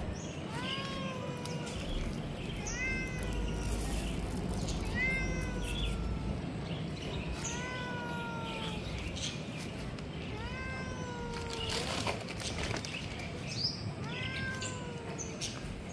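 A cat meowing over and over, about seven meows, one every two seconds or so, each rising then falling in pitch.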